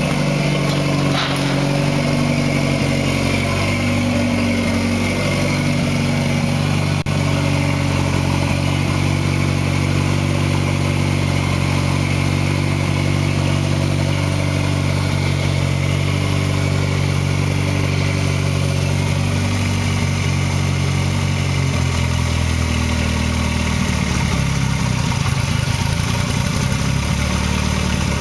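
Toyota 3S-GTE turbocharged 2.0-litre four-cylinder idling steadily on a first start after a rebuild. Near the end the engine note shifts and turns uneven.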